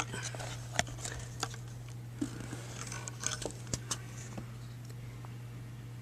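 Light clicks and taps of wooden fire-drill gear being handled, about six scattered in the first four seconds, over a steady low hum.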